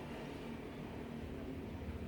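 Low, steady rumble of an engine, growing slowly louder.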